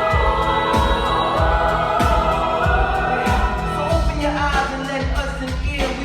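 Choir singing held chords over a backing track with a steady bass beat, about three beats every two seconds.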